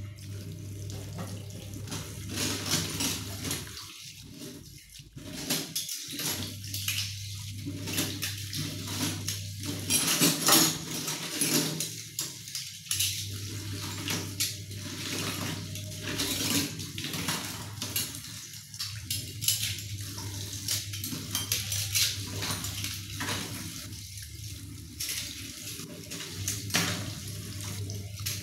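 Kitchen tap running into a stainless steel sink while glasses and steel cups are rinsed by hand under the stream, with the water splashing and dishes clinking now and then.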